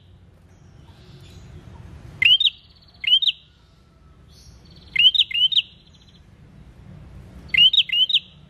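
Caged ashy tailorbird singing: four short phrases about a second or two apart, each made of two or three sharp up-slurred notes run together with a buzzy rattle.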